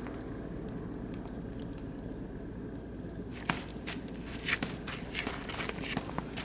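Oak and beech wood fire crackling, with sharp pops that come thicker and louder from about halfway through, over a steady low background noise.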